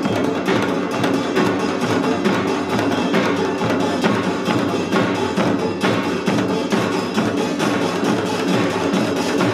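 Seated samul nori percussion ensemble playing an Utdari-style rhythm on janggu hourglass drums and buk barrel drums, with fast, dense strokes that keep going without a break.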